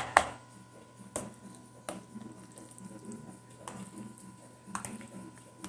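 Metal spoon stirring mayonnaise-dressed potato salad in a plastic bowl: a sharp click at the start, then a few scattered clicks of the spoon against the bowl, over a faint steady hum.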